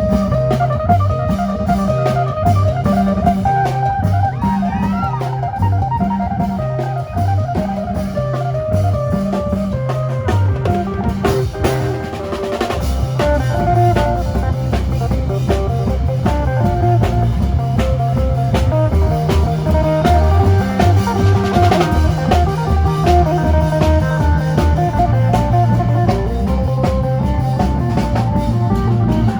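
Isan phin band playing lam phloen dance music: a plucked phin melody over a repeating bass line and a drum kit beat.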